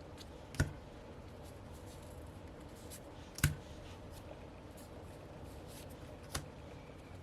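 Three sharp taps, about a second in, in the middle (the loudest) and near the end, as sticker sheets and other small pieces from a K-pop season's greetings set are handled and set down on a table, with faint paper rustling between.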